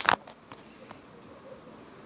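Pages of a printed book being flipped: a short, crisp paper rustle right at the start, then a few faint ticks of handling as a page settles.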